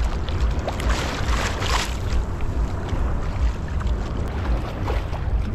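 Wind rumbling on the microphone over water washing around a round basket boat out on the sea, with a stronger splash of water about a second in.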